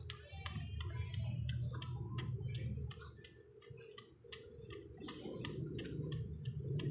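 A two-week-old pug puppy suckling milk from a syringe fitted with a teat: quick, irregular wet clicks and smacks from its mouth, over a steady low hum.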